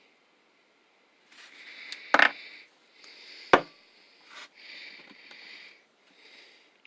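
Handling noise from small metal air-hose fittings: two sharp clicks, about two seconds and three and a half seconds in, with a lighter knock soon after, between stretches of soft breathing.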